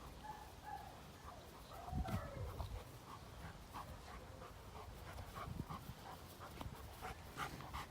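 Doberman panting softly, with a dull thump about two seconds in.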